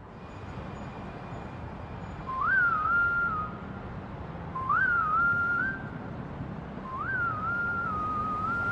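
A whistled melody: one short phrase that jumps up, dips and wavers, heard three times about two seconds apart, over a faint low background.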